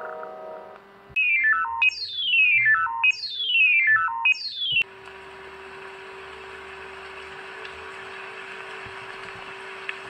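Emergency alert signal audio: three runs of electronic beeps, each stepping down in pitch. After about five seconds it gives way to a steady rain-like hiss with a low hum underneath.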